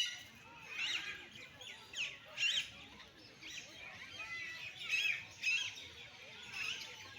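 Many birds chirping and calling, short high calls overlapping one another, with a few louder calls about one, two and a half and five seconds in.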